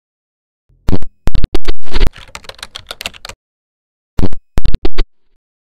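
Keyboard typing sound effect: loud, rapid keystroke clicks in two runs, a longer one starting about a second in and a shorter one past four seconds.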